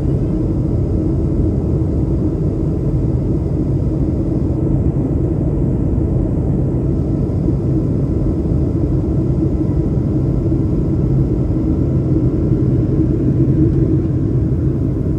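Steady rumble of a jet airliner in flight, heard from inside the cabin: engine and rushing-air noise with a low steady hum in it.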